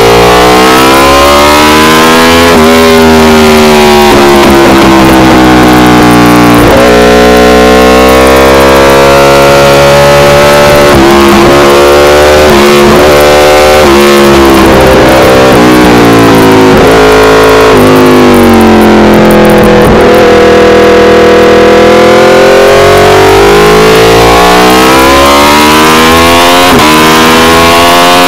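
Aprilia RSV4 Factory V4 engine through an SC-Project CRT exhaust under hard track riding, recorded close and very loud. Its pitch climbs in steps through quick upshifts and drops on braking and downshifts, over and over, with one long low stretch about two-thirds of the way through before it climbs again.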